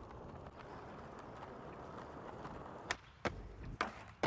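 Skateboard wheels rolling on rough concrete for about three seconds, then a quick series of four sharp clacks of the board popping, hitting and landing.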